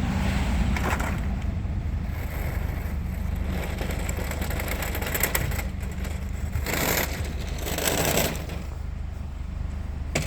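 Vehicle engine running with a steady low rumble, with a few short scraping or rattling noises about a second in and again around seven and eight seconds in.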